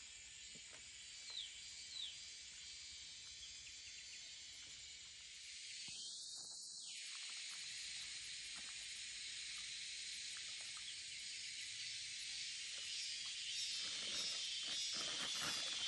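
Steady high-pitched chirring of insects in grass and brush, with two short falling chirps about a second in. Near the end, irregular rustling and light knocks join in.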